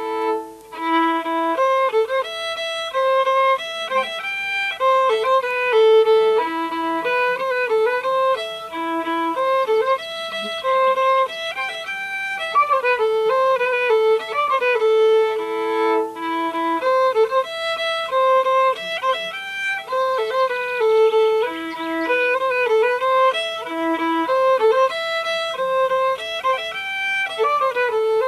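Solo fiddle playing a Swedish folk tune in the Småland spelman tradition: a single bowed melody line moving quickly from note to note.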